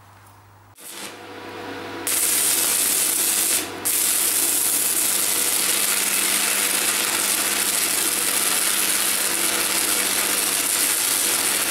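Electric arc welding with a Thermal Arc inverter welder: the arc strikes about two seconds in and runs with a loud steady hiss, cutting out briefly just under four seconds in and re-striking.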